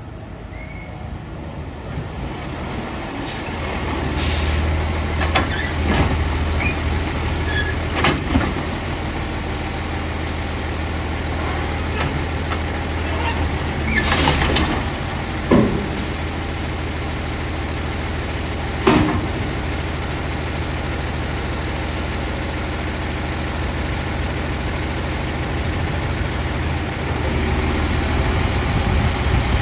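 Autocar ACX garbage truck pulling up and working its Heil automated side-loader arm. The engine drones heavily as the arm runs, with a series of bangs and clunks as the wheeled cart is gripped, lifted and tipped into the hopper. There is a burst of air-brake hiss near the middle.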